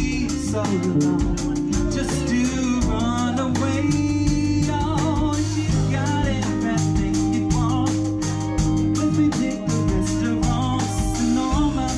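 Live band playing a song: drum kit keeping a steady beat, electric bass, electric guitar and electric keyboard, with a male lead vocal.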